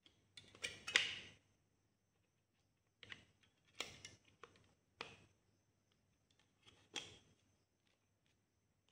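A 9-volt battery being handled and pressed into place in an opened plastic digital multimeter case: a few short bursts of clicks and plastic knocks, the loudest about a second in.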